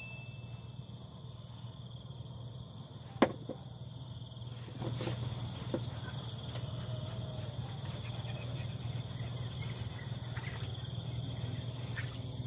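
Fishing reel being wound in on a bent rod, with a sharp click about three seconds in and small clicks after, over a steady low hum and a steady high insect-like drone.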